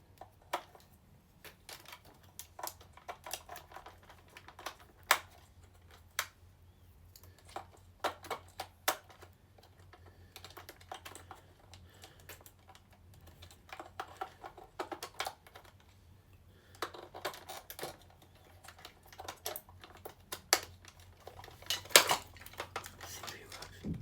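Irregular clicks and light knocks of hard plastic as a Buzz Lightyear action figure is handled and its battery compartment worked at, with a sharper click near the end.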